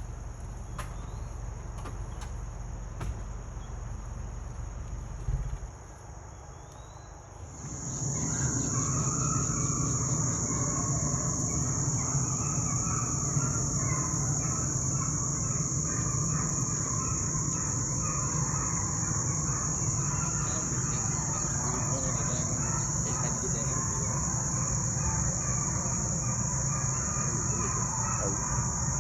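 Crickets or other insects chirring in a steady high drone that comes in loud about eight seconds in, over a low rumble, after a single thump about five seconds in.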